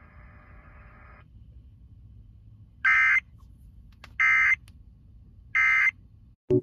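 Emergency Alert System end-of-message data tones: three short, identical digital squawks, about 1.3 s apart, that mark the end of a broadcast alert. A faint hum comes before them, and a sharp click comes right at the end.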